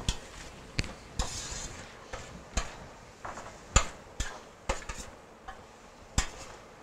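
Kitchen utensils clicking and knocking at uneven intervals, about nine light knocks in all: a spatula against a metal baking pan, then a knife working at the counter.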